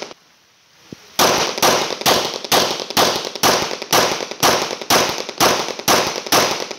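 HK P30L pistol fired one-handed in a steady string of about a dozen shots, roughly two a second, starting about a second in.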